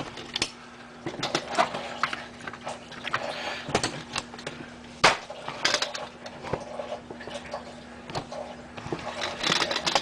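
Handling noise: irregular clicks, taps and rustles, with one sharper click about five seconds in, over a faint steady hum.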